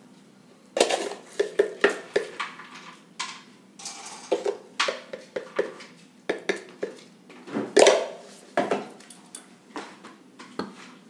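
A spoon clinking and scraping irregularly against a stainless steel bowl, stirring salt into flour and chopped fenugreek leaves. Some of the sharper knocks leave the bowl ringing briefly.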